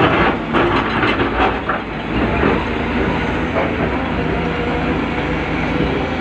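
Excavator's diesel engine running under load, with a run of clanks in the first couple of seconds before it settles into a steady drone.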